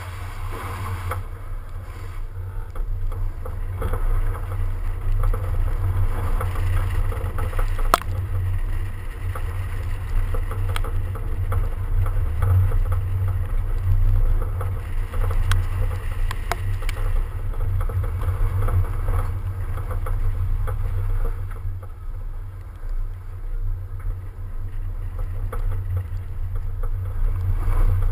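BMW 335d driving fast through a slalom on snow, heard from a camera mounted low on the outside of the car. The main sound is a steady low rumble of wind buffeting the microphone over engine and tyre noise, with a few sharp ticks.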